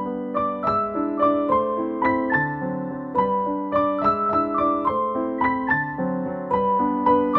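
Background music: piano playing an evenly paced melody, about three notes a second, over held lower chords.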